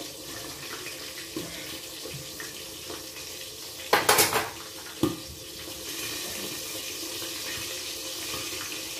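Metal kitchen tongs clatter down onto the enamel stovetop about four seconds in, followed by a single knock about a second later, over a steady hiss.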